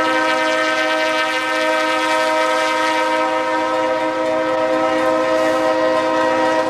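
Locomotive air horn sounding one long, steady blast, several notes together in a chord.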